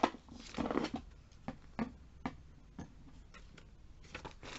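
Handling noise as eyeliner pencils in their packaging are taken out: a burst of rustling and clicks in the first second, then scattered light clicks and taps.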